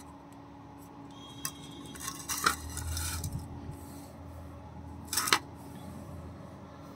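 Hard objects being handled and set down on a work surface: a few clicks, a cluster of clattering knocks about two to three seconds in, and a short louder rattle about five seconds in.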